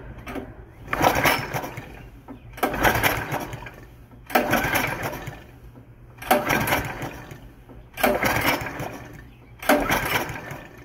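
Recoil starter cord of a pressure washer's gas engine yanked hard six times, about every 1.7 seconds. Each pull spins the engine over without firing, with the spark plug out and the ignition off, blowing trapped gasoline and oil out of the plug hole of a fluid-locked cylinder.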